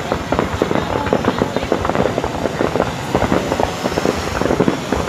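Fireworks going off in a dense, irregular stream of sharp bangs and crackles.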